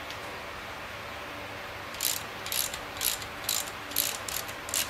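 Hand ratchet wrench clicking in short back-and-forth strokes, starting about two seconds in, as it snugs the connecting-rod cap nuts on a Chevy 454 big-block before torquing.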